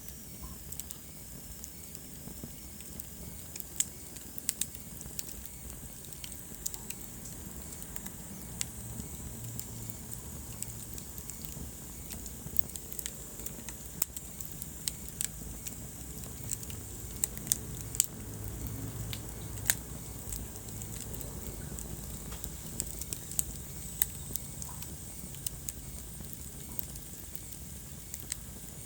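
Wood fire burning in a fireplace: irregular crackles and sharp pops over a low, steady rumble of the flames.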